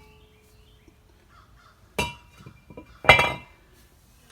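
Two metallic clanks from a brake rotor being worked off a truck's wheel hub, each ringing briefly. The second comes about a second after the first and is louder, with a few light knocks between.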